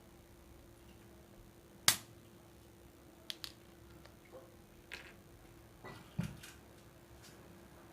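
Sparse handling and eating noises: one sharp click about two seconds in, then a few lighter clicks and taps and a short dull knock, over a faint steady hum.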